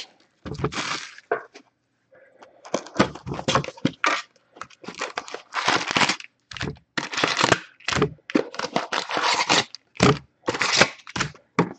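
A Panini Score football card box being torn open by hand, with repeated cracking and tearing of the cardboard. The wrapped card packs rustle and knock as they are pulled out and set down.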